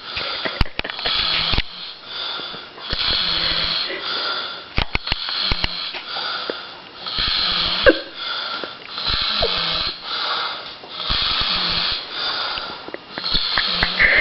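A sleeping man snoring: rough, noisy breaths of about a second each, repeating steadily every second or two.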